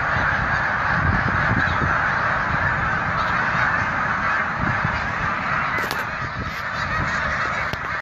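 A very large flock of snow geese honking all at once, a dense, unbroken din of overlapping calls that thins slightly near the end.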